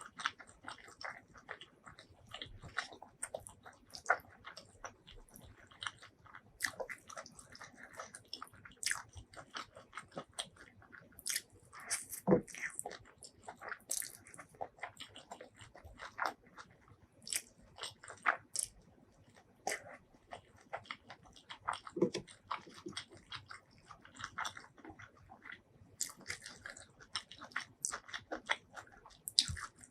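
Close-miked eating sounds: wet chewing, biting and lip-smacking, with irregular sharp clicks.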